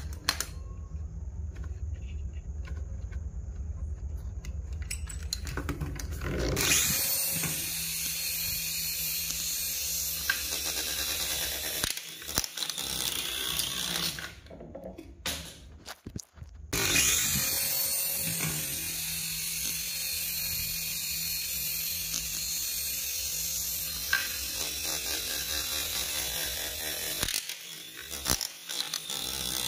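Toy RC mini helicopter's small electric motors and rotor blades whirring as it hovers, pulling up on a toy car tied on a string. The whir starts about six seconds in, cuts out briefly around the middle, and drops out again near the end.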